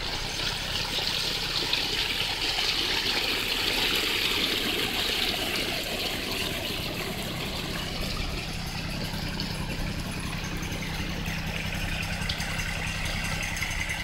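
Storm runoff rushing down a freshly dug drainage creek bed, with a compact tractor-loader-backhoe's engine idling steadily underneath. The rush of water is strongest in the first half.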